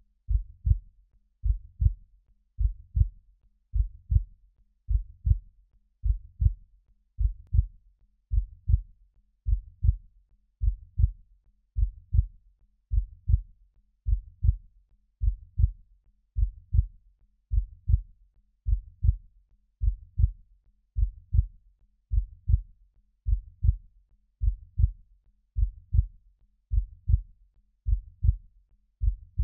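Heartbeat sound: a slow, steady lub-dub, two low thumps in quick succession repeating about once a second.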